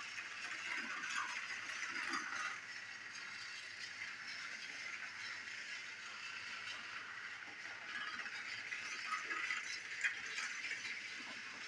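Motorized toy tram engine running around a loop of plastic toy track, its small motor and wheels making a steady rattling whir. The rattle swells near the start and again near the end, with one sharper click about ten seconds in.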